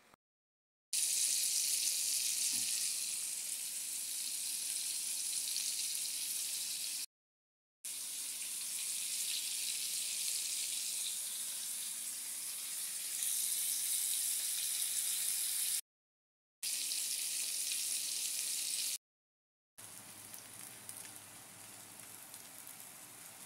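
Food sizzling as it fries in hot oil, a steady crackling hiss. It comes in four cut-together stretches, each broken off by a short moment of silence, and the last stretch is quieter.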